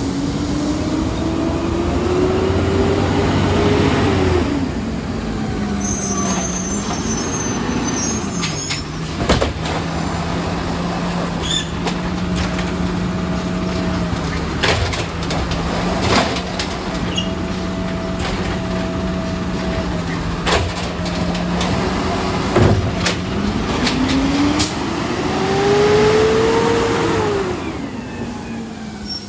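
Garbage truck engine revving up and settling back twice, once at the start and again near the end, and idling steadily in between. Scattered knocks and clanks from the truck working come over the idle.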